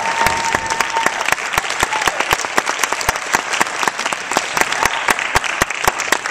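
Audience applauding, with dense, loud clapping throughout.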